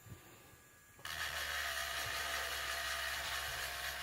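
Low-speed electric sander running steadily on its low setting, sanding dried putty. It comes in abruptly about a second in, after a moment of near silence.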